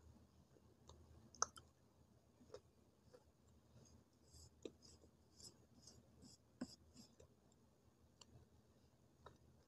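Faint clicks and crackles of a clay stick being snapped and crumbled by hand over a steel plate. A sharp snap comes about one and a half seconds in, then a run of quick ticks at about four a second through the middle.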